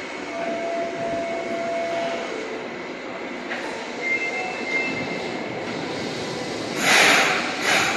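Subway train moving along the platform, a steady rumble with faint whining tones from the wheels and motors. Near the end come two loud bursts of hissing air.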